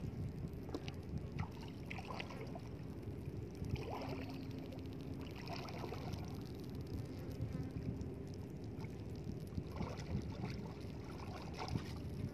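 Wind rumbling on the microphone over shallow seawater lapping and splashing around rocks, with small splashes as hands reach into the water.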